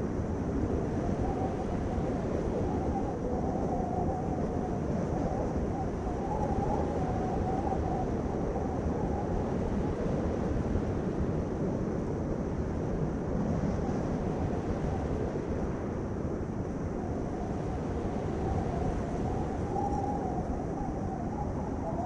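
Steady low rumbling noise with a faint wavering tone above it, unbroken throughout.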